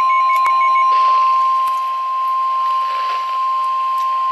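Emergency alert attention tone: one steady, unbroken high tone over faint radio hiss, the signal that a flood warning broadcast is about to follow.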